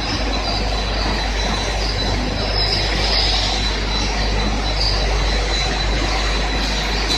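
Biscuit production line machinery running with a steady mechanical noise. A deep hum and a thin high whine run under it, with brief squeaks here and there.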